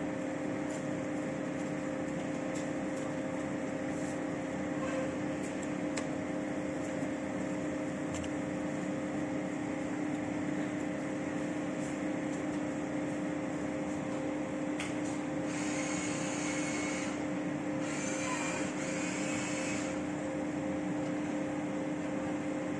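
Steady machine hum, a constant drone holding two tones, with two stretches of hiss a second or two long a little past the middle.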